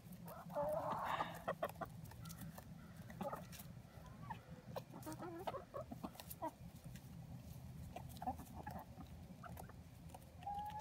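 Seven-month-old hen clucking quietly now and then, with faint clicks as she pecks at a piece of cauliflower.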